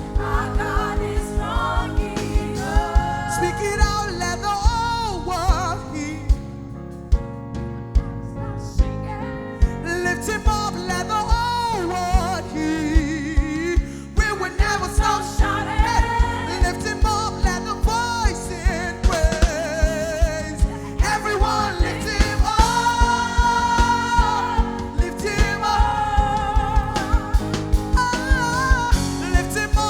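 Gospel worship band playing, with a lead singer's wavering, melodic vocal line over keys and a steady drum beat.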